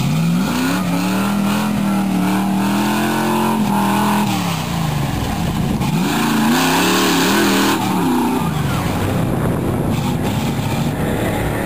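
Lifted GMC Suburban's engine revving twice as it drives through the mud bog. Each rev rises, holds for a couple of seconds and falls, the second one about six seconds in. A rush of hiss comes with the second rev.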